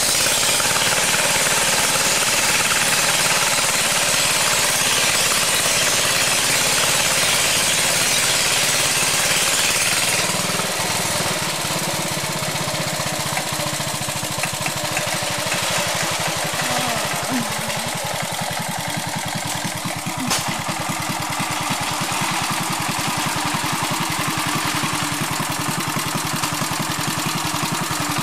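BCS walk-behind motor mower's engine running steadily under load, with a fast, even rhythm, as its cutter bar mows tall grass. The sound drops a little in loudness about ten seconds in.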